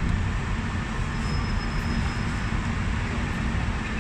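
Hong Kong double-decker tram running along its rails: a steady low rumble from the wheels and running gear, with a faint thin high whine for a second or so near the middle.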